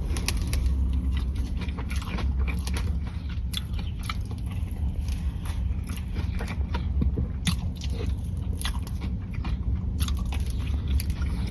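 A person biting into and chewing a warm, soft Crumbl butter cake cookie, with many small clicks of chewing throughout.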